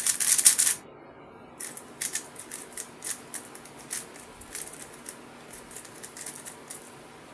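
MoYu WRM V10 speedcube being turned fast during a solve: rapid plastic clicking and rattling of the layers. A dense burst of turns opens it, a pause of about a second follows, then quicker separate turn clicks run on until shortly before the end.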